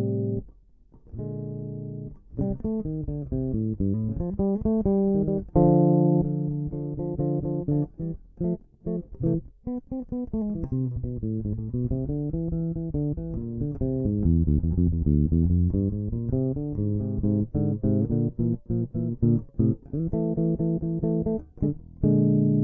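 Electric bass guitar playing a minor blues: a running line of plucked notes, many short and separated, climbing and falling in runs, with a brief gap about a second in.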